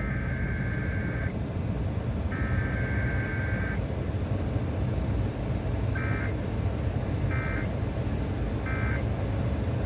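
Emergency Alert System SAME digital data bursts, a harsh two-tone warble. Two longer bursts come first, then three short end-of-message bursts about a second and a half apart, closing the test broadcast. A loud steady low rumble runs underneath.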